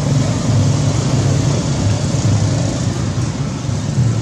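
Steady low rumble like a running motor vehicle engine, with an even hiss over it.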